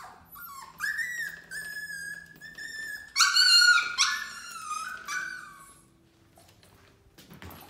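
Parson Russell Terrier puppy whining in a run of high cries, loudest about three seconds in and dying away after about six seconds; the puppy is whining to be let out of its gated pen.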